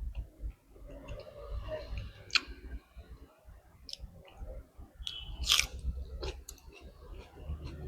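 A person chewing a mouthful of pork and rice close to the microphone, with wet mouth sounds and sharp smacking clicks; the loudest click comes about five and a half seconds in.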